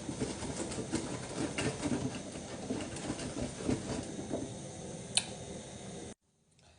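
Manual food chopper rattling and clattering irregularly as scotch bonnet peppers are chopped, with one sharp click about five seconds in. The sound cuts off abruptly near the end.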